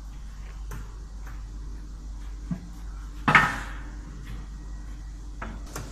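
Metal clicks and knocks as the mold of a silicone wristband press is worked by hand, with one louder metallic clatter that rings briefly about three seconds in, over a steady low hum.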